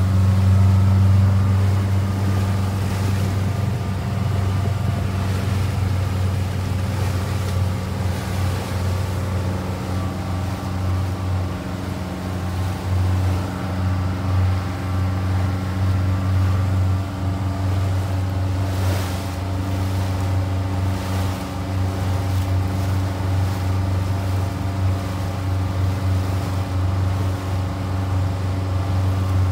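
Motorboat engine running at a steady low pitch, with wind and water noise against the hull.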